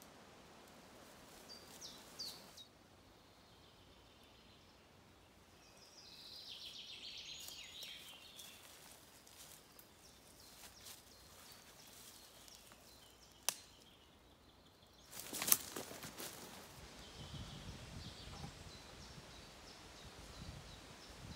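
Quiet woodland ambience with birds chirping now and then, strongest about a third of the way in. A single sharp click and then a brief loud crackle come a little past the middle, followed by a low rumbling in the last few seconds.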